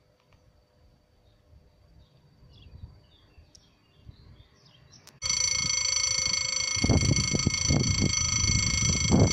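A few faint bird chirps, then about five seconds in a level-crossing warning bell starts abruptly: a loud, steady electronic ringing made of several fixed tones, sounding as the barriers come down to warn of an approaching train. Low rumbling bursts sit underneath it from about seven seconds.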